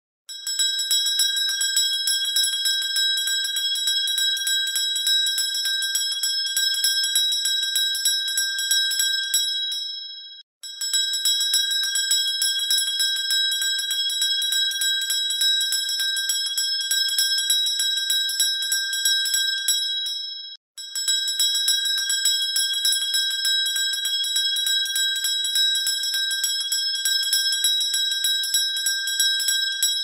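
A high-pitched bell ringing rapidly and continuously, its clapper striking many times a second. The ringing breaks off briefly about ten and twenty seconds in, then starts again.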